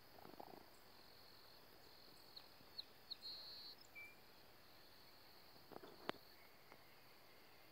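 Near silence in a grassy field, with a steady high insect drone throughout and a few short high chirps about three seconds in. A faint click comes near the six-second mark.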